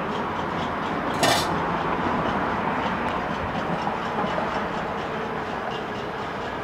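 Many pots and pans being struck across the surrounding apartment blocks, a dense, steady clatter of metal on metal: a cacerolazo protest. One short, louder crash stands out about a second in.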